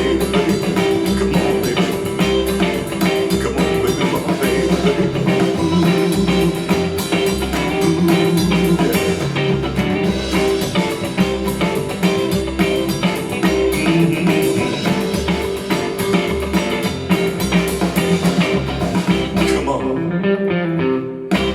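Blues-rock music with guitar, bass guitar and drum kit, played back through a Grundig Minerva Mini-Box MB 5030 HiFi speaker. The beat is steady, and the treble thins out briefly near the end.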